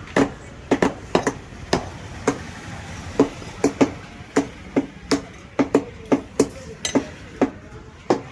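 Cleaver chopping chicken on a chopping board: a run of sharp, unevenly spaced chops, roughly two a second.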